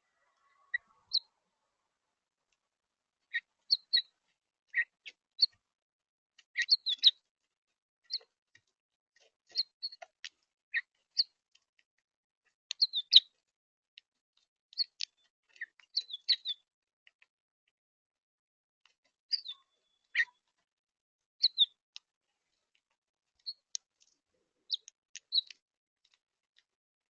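Small birds giving short, scattered chirps, one or a few quick notes every second or two, with silence between them.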